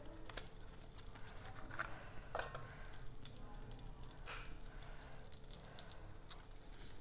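Butter faintly sizzling and crackling in a hot pan on the stove, with scattered small ticks and a faint steady hum underneath.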